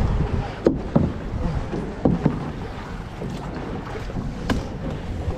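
Kayak paddle strokes in the water, with several sharp splashes standing out, over a low rumble of wind on the microphone.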